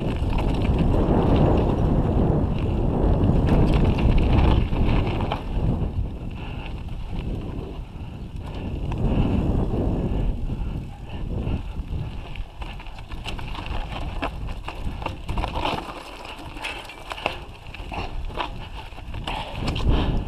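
Mountain bike rolling down a rocky, gravelly trail: the frame and parts rattle and tick over the stones while wind rumbles on the camera's microphone. The rumble is strongest in the first few seconds and eases off in the middle.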